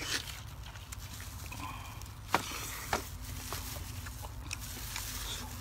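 Soft, wet chewing of fatty beef rib meat pulled off the bone, with a couple of sharper clicks about two and a half and three seconds in.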